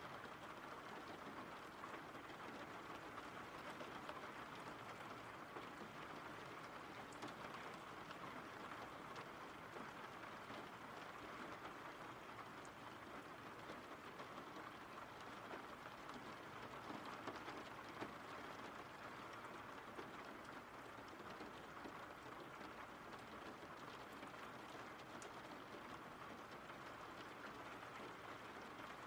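Steady rainfall: a soft, even hiss of rain with no change in intensity.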